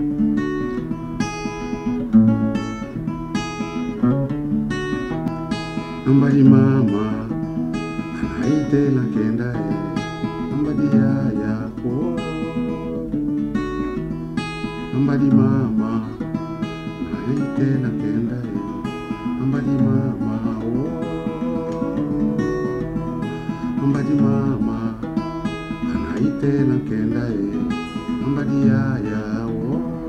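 Acoustic guitar strummed in a steady rhythm, accompanying a man singing a traditional song; his voice comes and goes over the guitar.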